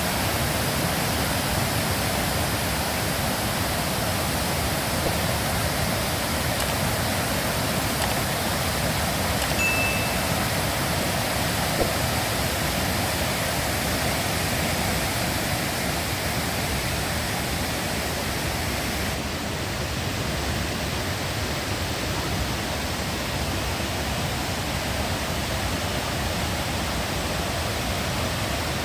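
Steady rush of falling water from the Kuang Si waterfall cascades. A short high peep sounds once about ten seconds in.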